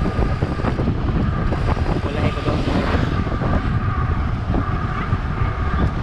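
Wind buffeting a handlebar-mounted camera's microphone while a mountain bike rolls along a paved road: a steady, loud rumble with a faint steady tone running through it.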